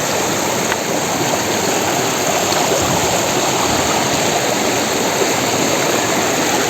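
River water rushing steadily over rocks, a continuous even hiss and gurgle of a fast stream.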